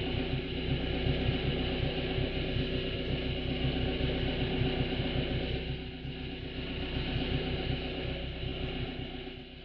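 Motorboat engine idling, a steady hum with a fast regular low throb; it eases down slightly about six seconds in.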